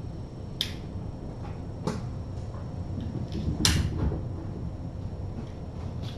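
Three sharp clicks or knocks a second or two apart, the third the loudest with a dull thump beneath it, over a steady low hum.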